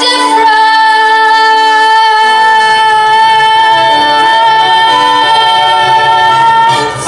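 A female singer holding one long high note with musical accompaniment; low bass notes come in about two seconds in, and the note ends just before the close.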